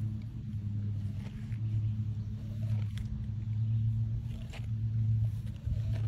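Tiger licking at a watermelon, a few soft wet licks heard now and then, over a steady low hum that is louder than the licking.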